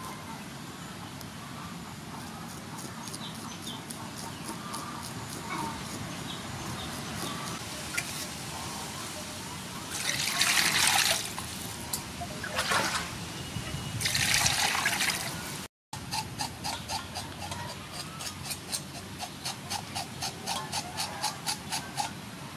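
Water splashing in a metal basin in three loud bursts as whole fish are washed. Then a kitchen knife scrapes scales off a fish in quick repeated strokes, about three a second.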